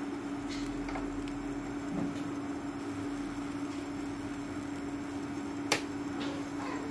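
Induction cooktop running, a steady hum from its coil and cooling fan over a soft hiss, with one sharp click near the end.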